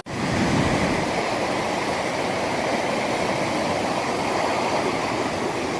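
Lake Superior surf after a gale: a steady rush of large waves breaking on the shore.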